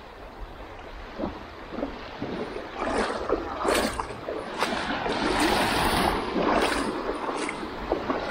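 Shallow seawater sloshing and splashing close to the microphone, with wind buffeting it. About three seconds in the water grows louder, with a run of irregular splashes.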